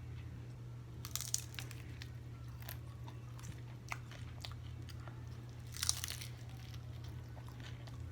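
Close-up chewing and crunching of a crispy beef taco, with two louder bursts of crunching about a second in and near six seconds, and smaller crackles between. A steady low hum runs underneath.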